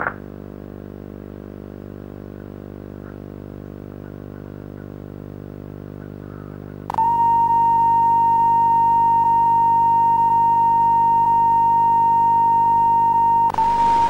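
A low steady buzzing drone, then about seven seconds in a loud steady test-card tone, a single high pitch, cuts in abruptly. It dips for a moment near the end.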